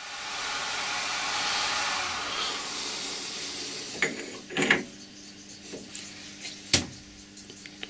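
A steady hiss for the first few seconds, then a few sharp metallic clicks and knocks as a brass sleeve is pushed by hand onto a turned taper held in a lathe chuck, its internal taper seating as a snug fit.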